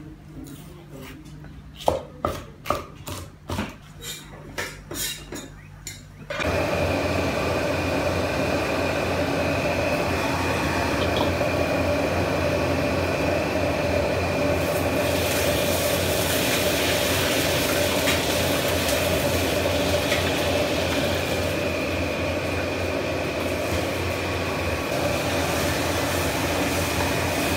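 A cleaver chopping on a wooden chopping block: a quick run of sharp knocks at about three a second. About six seconds in, this gives way to the loud, steady running of a gas wok burner with a low hum, and from about halfway a hiss of food frying in the wok joins in.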